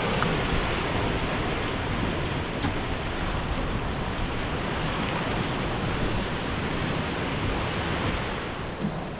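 Steady rush of sea and wind noise, with wind buffeting the microphone.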